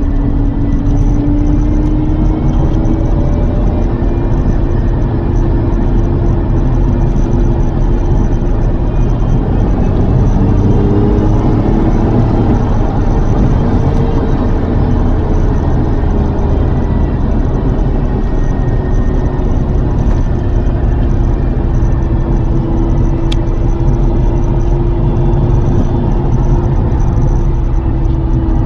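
Lotus Carlton's 3.6-litre twin-turbo straight-six running while the car is driven, over a steady road rumble, its engine note drifting gently up and down with speed.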